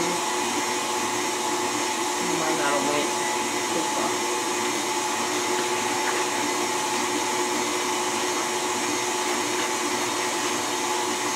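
Stand mixer running steadily with a plastic meat grinder attachment, grinding raw meat: an even motor hum and whine.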